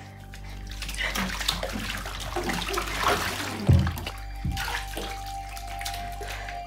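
Bath water splashing and sloshing as a person moves and scrubs himself in a tub. There are two heavy thuds about four seconds in, over a soft background music bed of steady held tones.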